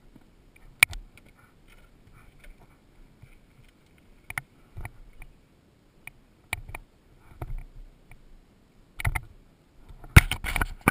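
Scattered clicks and knocks with low gusts of wind buffeting a helmet-mounted camera's microphone as the rider's head moves, and a louder run of knocks near the end.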